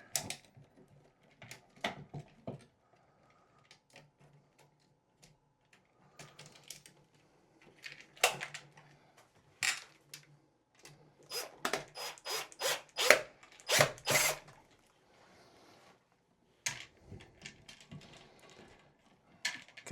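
Hand work on a light-switch backplate's wiring: scattered sharp clicks, taps and rubbing as wires are handled and fitted into the terminals, coming thick and fast over the middle stretch. A faint low hum comes and goes underneath.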